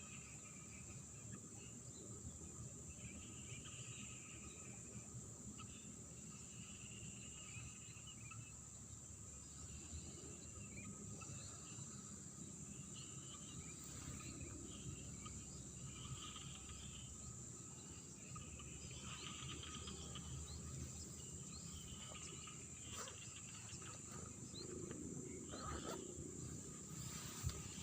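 Water trickling in rice paddies under a steady, high-pitched insect drone, with short calls coming and going.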